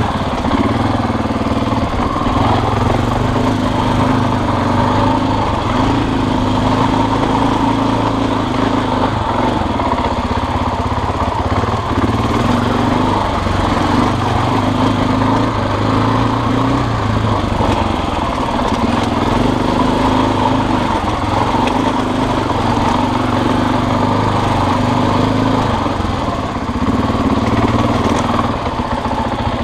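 Husqvarna dirt bike's engine running on a trail ride, its note stepping up and down with the throttle.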